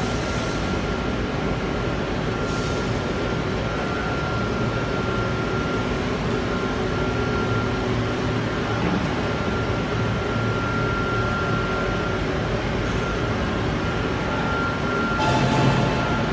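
Steady machinery noise of a powder coating line, a constant rushing hum with a thin steady whine over it. There is a short louder surge near the end.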